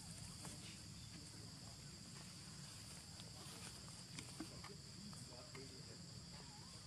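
Faint, steady, high-pitched insect chirring, with a few soft ticks and rustles.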